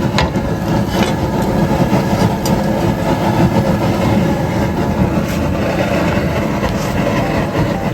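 Steady noise of an outdoor propane jet burner running under a large pot of jambalaya, which is being brought to the boil.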